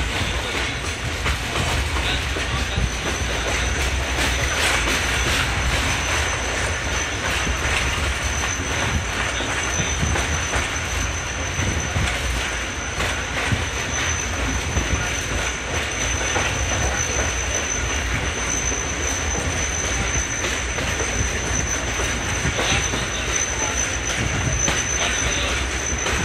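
Passenger train running on the track: a steady rumble with wheels clattering over rail joints, and a thin high wheel squeal that comes in a few seconds in and holds.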